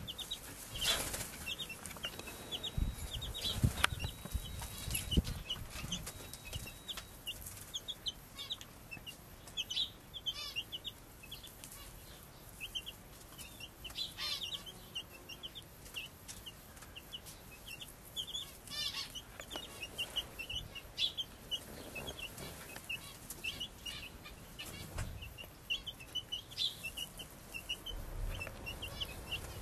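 Chicken chick peeping over and over in short high notes while a hen scratches in soil and straw, with rustling and scraping from the scratching and a few clucks.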